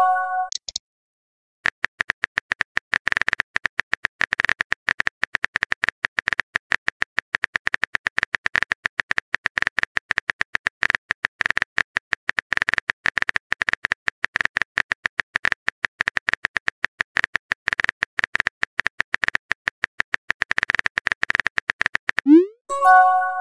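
Fast, continuous clicking of a phone chat app's on-screen keyboard, key taps running for about twenty seconds as a long text message is typed. Near the end a short rising chime sounds: the app's message-sent notification.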